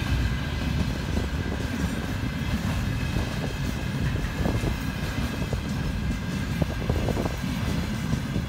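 Container train's flat wagons rolling past on the rails: a steady low rumble of steel wheels on track, with scattered short knocks as the cars go by.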